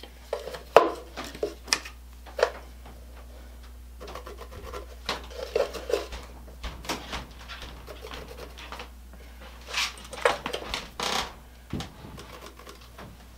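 Scattered light clicks, taps and scrapes of a steel tape measure being pulled out and laid against pallet-wood boards, with a pencil scratching a mark on the wood.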